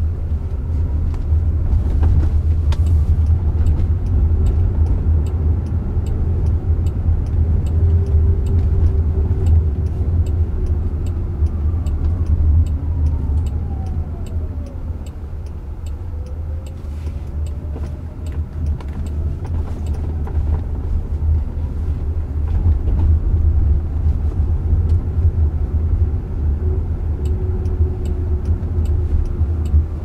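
Cabin noise of a Jaguar I-PACE electric car driving: a steady low tyre and road rumble, with a faint electric-motor whine that falls in pitch as the car slows about halfway through and rises again as it pulls away. A faint, regular ticking runs underneath.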